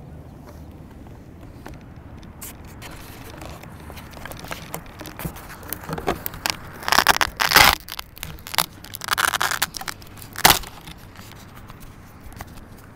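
Handling noise right at a small camcorder's microphone: fingers rubbing and scraping on the camera and its mount, with scattered clicks. The rubbing grows loud in the second half, with one sharp knock near the end.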